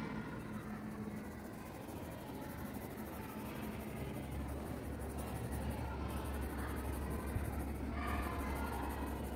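Pencil shading on paper, scratchy back-and-forth strokes of the lead. A steady low hum comes in about four seconds in.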